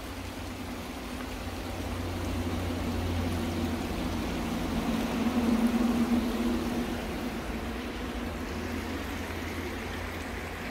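Road traffic: a vehicle passing on a nearby highway, a low rumble with a faint hum that swells to its loudest about halfway through and then fades.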